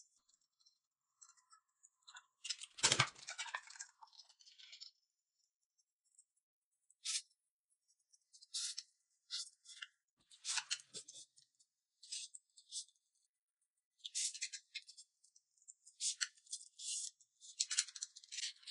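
Faint close-up eating sounds of a person slurping and chewing noodles, in short scattered bursts, the loudest about three seconds in.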